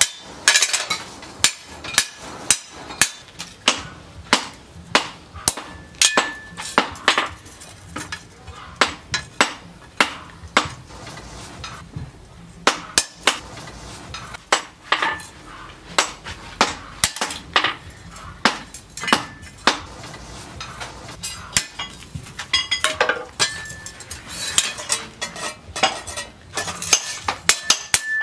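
Hand hammer striking a large steel knife blank, cut from a disc-plough disc, on an anvil block: a run of sharp metallic blows, about one or two a second, some leaving a short ring. There is a brief pause about halfway through.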